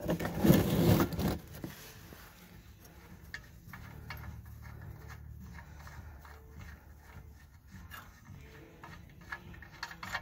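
Gloved fingers unscrewing a loosened oil drain plug from the oil pan: a loud burst of rustling handling in the first second or so, then faint rubbing and small clicks over a low steady hum.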